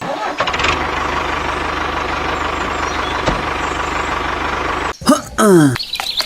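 Truck engine running steadily with a fast low pulse for about five seconds, then cutting off suddenly. A short vocal sound falling in pitch follows near the end.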